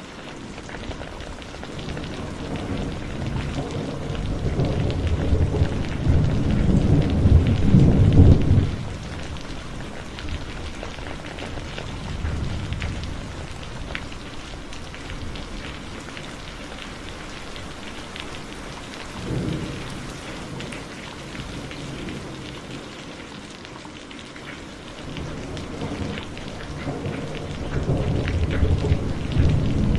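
Heavy rain falling steadily, with rolling thunder. A long rumble builds and breaks off sharply about a third of the way in, a weaker one follows past the middle, and another swells near the end.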